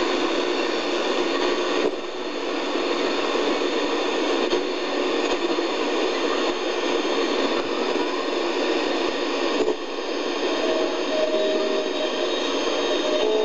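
Static hiss from a Strauss 500 multiband radio tuned between stations, a steady rushing noise that dips briefly twice. Faint whistling tones creep into the hiss about ten seconds in as the dial nears a station.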